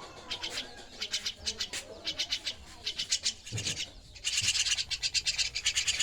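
Young starling (jalak) calling with rapid rasping pulses in short bursts, which run together into one continuous, louder rasping call about two-thirds of the way in. A single low thump a little past the middle.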